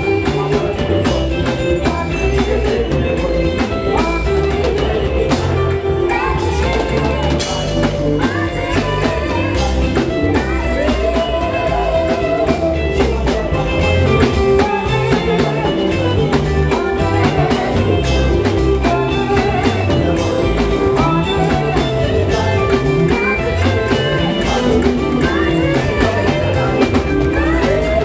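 Live band music with drums and a steady beat, with singing over it at times.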